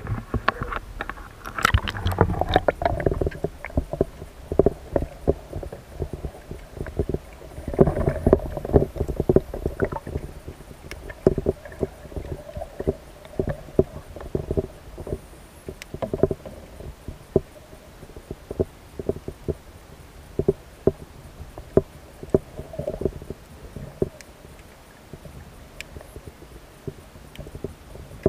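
Muffled water noise heard through a camera held underwater: a low rumbling slosh with many irregular knocks and clicks, busiest in the first few seconds.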